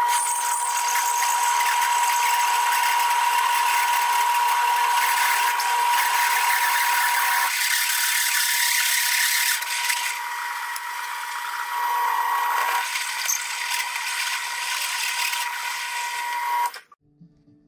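Drill press driving a hole saw through quarter-inch metal plate: a steady metal-cutting grind with a high, constant whining tone. The sound eases slightly about halfway through and stops abruptly near the end.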